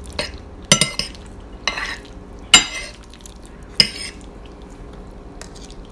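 Metal fork scraping and clinking against a plate as pasta is scooped up, several sharp strokes with the loudest about halfway through.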